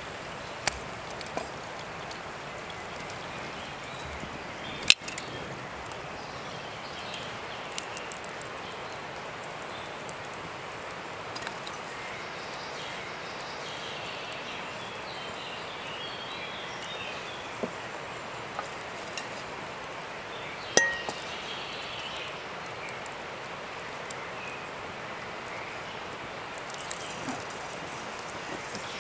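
A few sharp metallic clinks of cooking utensils, the loudest about five seconds in and another about twenty-one seconds in that rings briefly, over a steady background hiss with faint chirping.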